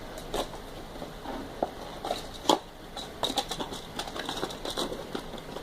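Irregular light clicks and knocks of a small plastic speaker box being handled and set down, with one sharper knock about halfway through.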